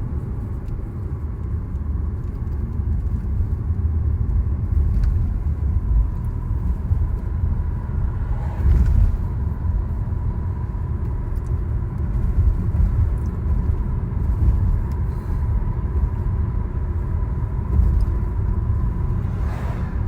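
Car driving on winter tires: a steady low rumble of road and engine noise with a faint steady high whine, swelling slightly a couple of times.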